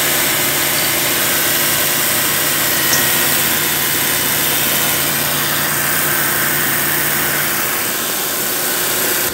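Nissan Sunny's four-cylinder engine idling steadily under a steady hiss; a low hum in it drops out near the end.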